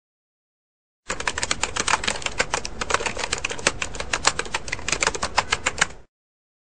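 Typewriter sound effect: a rapid, irregular run of sharp keystroke clicks that starts about a second in and cuts off abruptly near the end, typing out on-screen text.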